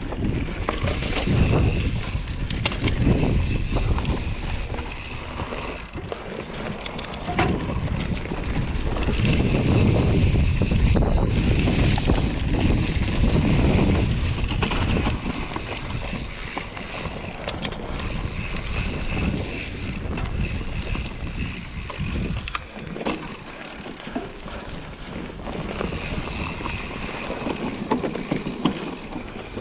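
Santa Cruz Hightower mountain bike riding down a dirt forest trail: wind rushing over the microphone and tyres rolling on the dirt, with scattered knocks and rattles from the bike over bumps. Louder through the middle, easing off in the last third.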